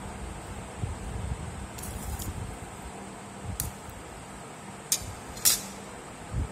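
A few brief, light clinks, the loudest about five and a half seconds in, over a steady low hum and hiss.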